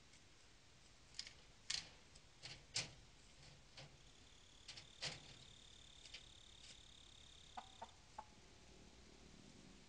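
Sharp clicks and taps of a bobcat's claws and paws on a chicken coop's wire mesh and wooden frame as it rears up against it. A faint steady high-pitched tone runs through the middle for about four seconds, and near the end the hen inside starts to cluck.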